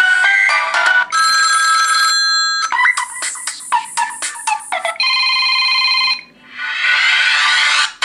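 Samsung Galaxy S stock ringtones previewing through the phone's speaker: several short electronic tunes in a row, each cut off abruptly after a second or two as the next one is selected.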